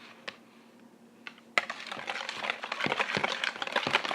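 A whisk clicking and scraping against a mixing bowl as slime is stirred. A couple of single clicks, then from about a second and a half in, rapid, irregular, continuous stirring.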